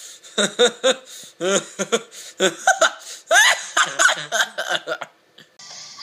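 A young man laughing in short, choppy bursts. The laughter stops about five seconds in, and pop music starts just before the end.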